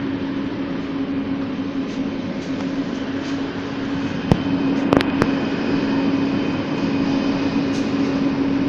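Bombardier Innovia ART 200 light-rail train heard from inside the car as it runs slowly into a station: a steady electric hum over rolling noise, with a few sharp clicks a little after four and five seconds in.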